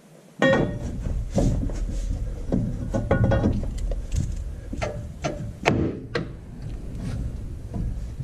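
Metal knocks, clunks and scraping as the front axle shaft of a Ford F350 Super Duty is worked loose in the axle housing, with two short bursts of rapid rattling.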